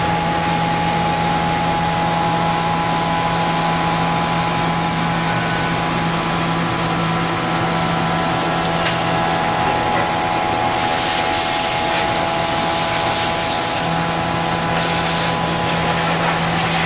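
Kitamura Mycenter horizontal machining center face-milling a part under flood coolant. The machine gives a steady hum with a constant tone, under the hiss of coolant spray and cutting; the hiss turns brighter and harsher about eleven seconds in.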